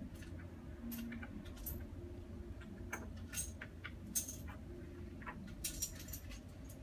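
Handling noise from fingers turning a polished opal: scattered faint irregular clicks and rubs, one sharper click about four seconds in, over a steady low hum.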